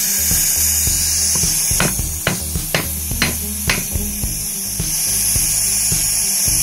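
Gas torch hissing steadily while it heats a small steel blade red-hot, with about five sharp hammer knocks on the metal, roughly half a second apart, in the middle.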